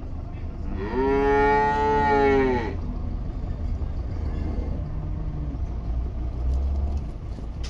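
Zebu cattle in a pen: one animal gives a single loud moo of about two seconds, starting about a second in, over a steady low rumble.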